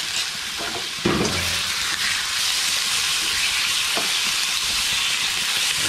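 Raw chicken pieces and fried tofu strips sizzling in hot oil in a wok, stirred with a spatula. A sharp knock about a second in and a lighter click near four seconds.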